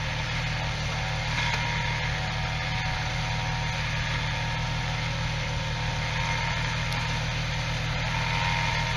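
Electric winch on an off-road vehicle running, a steady motor whine over the idling engine; the whine grows slightly stronger near the end.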